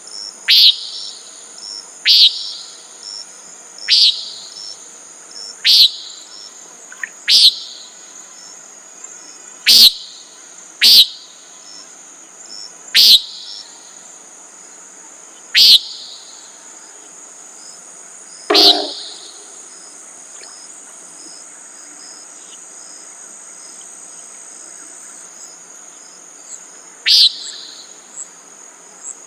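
Common nighthawk giving its short, nasal peent call again and again, one call every one and a half to three seconds, then falling silent for several seconds before one more call near the end. A steady, high insect trill runs underneath.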